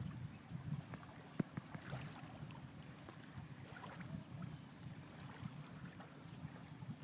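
Faint sea water washing and lapping with an irregular low rumble of wind on the microphone, and one sharp tick about a second and a half in.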